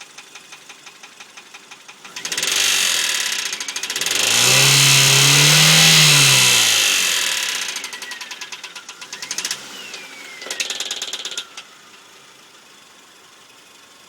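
Mazda engine idling with a rhythmic knock, revved briefly about 2 s in, then held up for a longer rev that rises and falls before dropping back to a knocking idle, with one more short blip near the end; a high whine falls in pitch as the revs come down. The knock is suspected rod knock.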